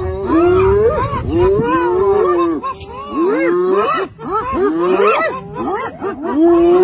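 Spotted hyenas giggling and yelping in a rapid run of short rising-and-falling notes, several voices overlapping, with a longer held call near the end.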